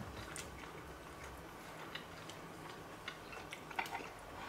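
Faint, irregular light clicks of cutlery against a plate during eating.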